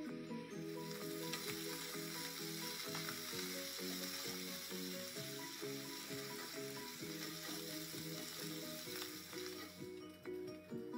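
Diced chicken frying in hot oil in a skillet, browning to crisp: a steady sizzle that starts about half a second in and stops about a second before the end. Background music plays under it.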